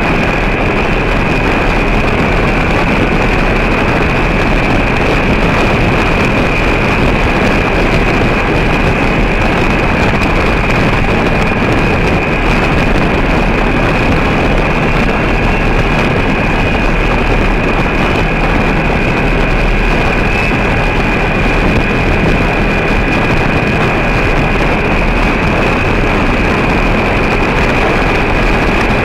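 A vehicle's engine running steadily at cruising speed as it travels along a gravel road, with a thin, steady high whine over the rumble and road noise.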